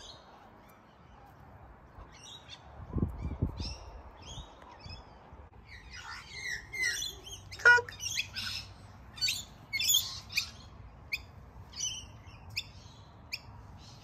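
Birds chirping and squawking in short, high calls that come thickest through the middle and then singly, about one every half second, towards the end. A low thump comes about three seconds in, and a sharp click just before eight seconds.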